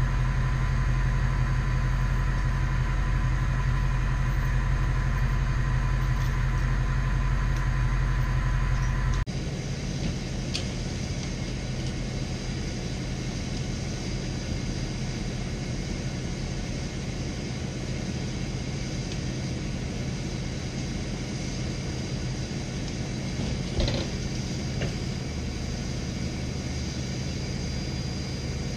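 1996 bucket truck's engine running steadily. About nine seconds in the sound drops abruptly to a quieter, even rumble, and there is a single knock a few seconds before the end.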